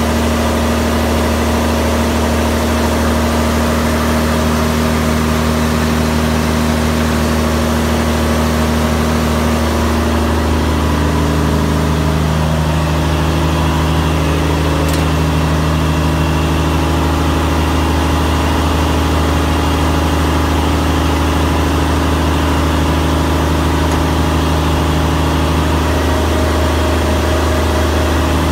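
Fishing boat's inboard diesel engine running steadily in the engine room, its pitch shifting slightly about ten seconds in.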